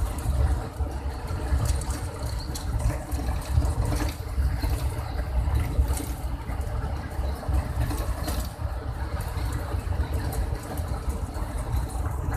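Inside a coach bus travelling at high speed on a highway: a steady low engine and road rumble with faint rattles and clicks.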